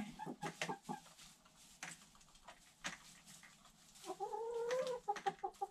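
Domestic hens in a coop: scattered light taps and pecks for the first few seconds, then about four seconds in one hen gives a drawn-out call, followed by a quick run of clucks.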